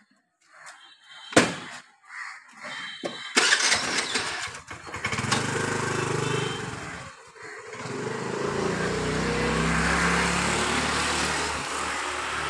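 A single sharp click about a second and a half in, then a motor engine running from about three and a half seconds on, with a short dip around seven seconds before it grows louder again.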